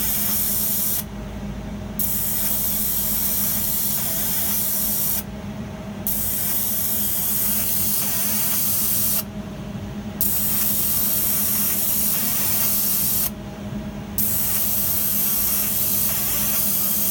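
3D laser engraver marking with a steady hiss over a low machine hum; the hiss stops for about a second roughly every four seconds, then starts again.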